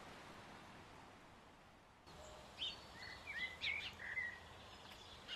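Small birds chirping and twittering in a quick run of short, high calls, starting about two seconds in after a faint steady hiss.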